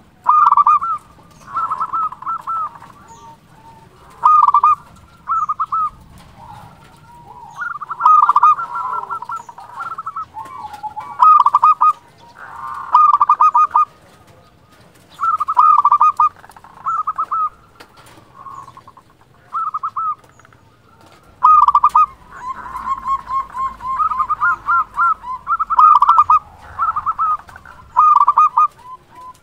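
Local Indonesian zebra dove (perkutut) singing loudly and constantly: repeated short phrases of rapid, staccato cooing notes, one phrase every second or two with brief pauses between.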